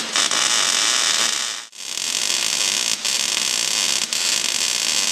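MIG welder laying stitch welds on steel plate, a dense steady hiss of the arc. It breaks off for a moment a little under two seconds in, then starts again for a second, longer weld.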